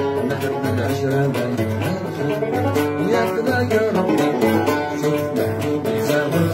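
Oud plucked in a fast run of notes over a low, repeating bass note pattern.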